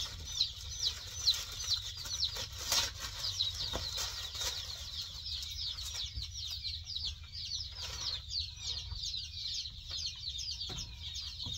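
A large brood of day-old chicks peeping without pause, a dense chorus of short, high, falling chirps. A few brief rustles and knocks come from a plastic-wrapped tarp being handled and laid on the brooder's wire lid.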